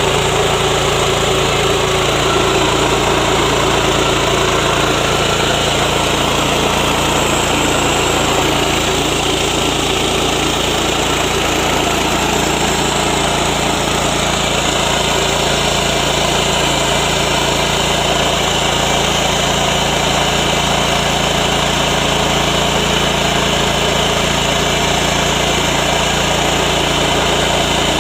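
Small 7 HP engine running steadily, driving a mini rice milling machine, with a constant mechanical hum and hiss.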